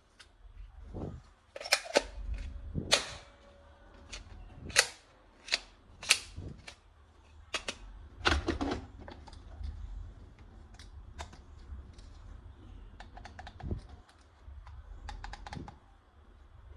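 Irregular sharp clicks and snaps of plastic toy guns being handled and worked, some loud and some faint, with a quick run of small clicks near the end.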